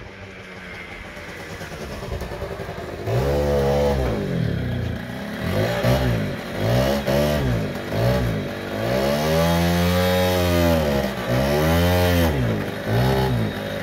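Piaggio Quartz's 50 cc two-stroke scooter engine running low for about three seconds, then revving up and dropping back about seven times, one longer rev near the middle.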